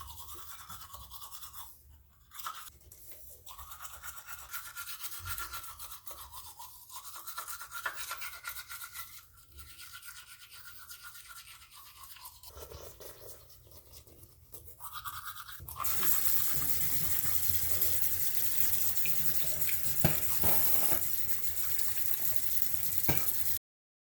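A small power trimmer's motor buzzing with a wavering whine as a bush is cut back. About two-thirds of the way in it gives way to a louder, steady rushing noise, which cuts off suddenly near the end.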